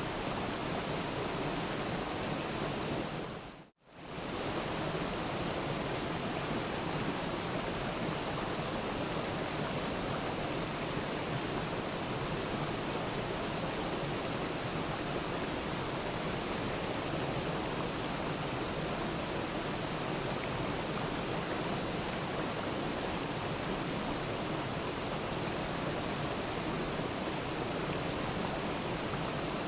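Waterfall: steady rushing water. The sound dips out briefly, fading to near silence about four seconds in and coming straight back.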